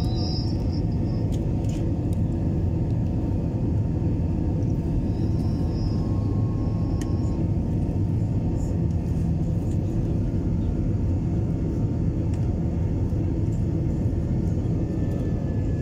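Steady low roar of a twin-engine jet airliner's engines and rushing air, heard inside the cabin while the plane climbs after takeoff.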